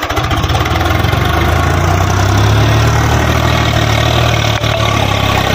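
Swaraj 735 FE tractor's three-cylinder diesel engine working hard under load as the tractor climbs up a steep earthen bank out of the field; a steady, loud drone.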